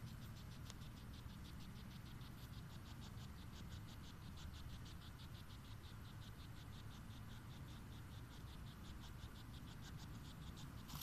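A night insect chirping in a steady fast rhythm of short high pulses, about five a second, over a low steady rumble.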